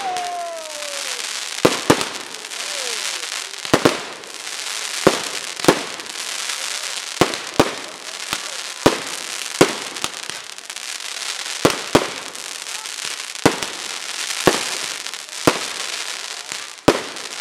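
Aerial fireworks display: sharp shell bursts go off roughly once a second, sometimes two close together, over a steady crackling hiss of burning stars between the bangs.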